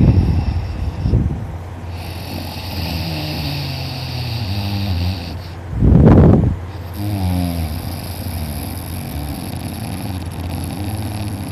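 A man in deep sleep snoring loudly: a loud snore right at the start and another about six seconds in, with quieter pitched, wavering breathing sounds in between.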